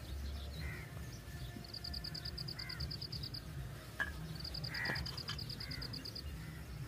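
Crows cawing now and then in the distance, while a fast, high-pitched trill twice runs for about two seconds; a single faint click about four seconds in.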